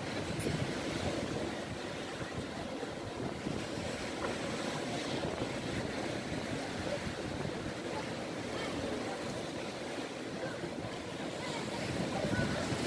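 Sea waves breaking and washing against a stone sea wall: a continuous surging wash of surf that swells louder near the end.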